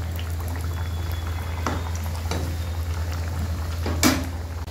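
A dal puri deep-frying in hot oil in a kadhai: the oil bubbling and crackling steadily, with a few sharp clicks, the loudest about four seconds in. A steady low hum runs underneath.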